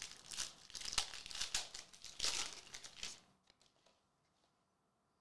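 Foil wrapper of a 2023-24 Donruss Soccer hobby pack being torn open and crinkled by hand, a dense crackling rustle that stops about three seconds in, followed by a few faint ticks as the cards are handled.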